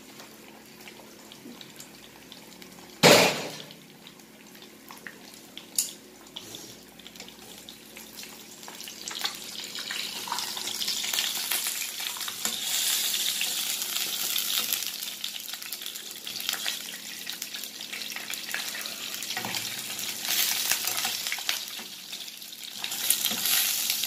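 An egg sizzling as it fries in oil in a nonstick frying pan. The sizzle swells about a third of the way in and stays strong. There is one sharp knock about three seconds in and a lighter one a few seconds later.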